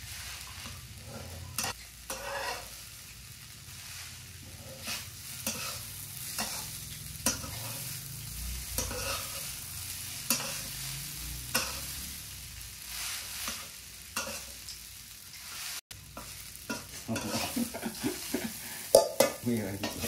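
Metal spatula scraping and turning fried rice in a hot frying pan, with a soft sizzle of frying underneath. The scrapes come in short irregular strokes and grow louder and quicker near the end.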